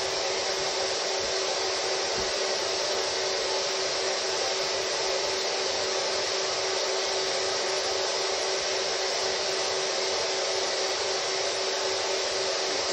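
Steady, unvarying rushing noise with a constant low hum under it, like an air-moving fan running.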